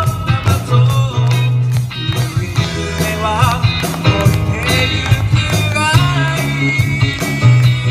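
Live rock band playing: male vocals over electric guitars, keyboard, bass guitar and a steady drum beat.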